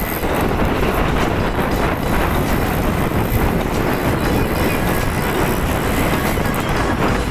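Motorcycles riding along a street: a steady rush of engine and road noise mixed with wind on the microphone.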